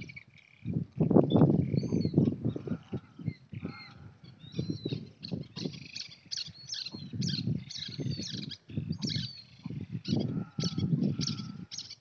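Birds chirping and calling in short high notes, thicker in the second half, over loud, irregular low rumbling that comes and goes in bursts.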